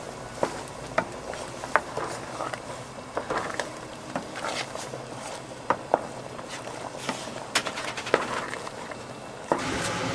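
Wooden spoon stirring a thick, creamy chicken pie filling in an aluminium pot, with irregular light knocks and clicks of the spoon against the pot. Near the end these give way to a steady hum.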